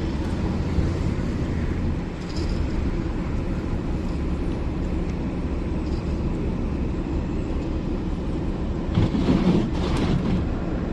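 Steady low rumble of a car being driven, heard from inside the cabin: engine and tyre noise on a snowy road. There is a brief swell of louder noise near the end.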